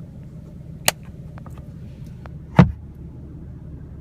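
Sun visor and its vanity mirror cover being folded shut inside a car: a sharp click about a second in, then a louder knock about two and a half seconds in, over a steady low hum.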